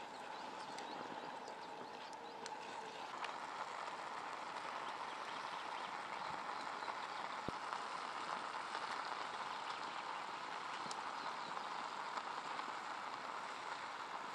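Pot of nettle soup boiling over a small wood-burning camp stove, a steady bubbling hiss with scattered faint ticks. One light knock about halfway through.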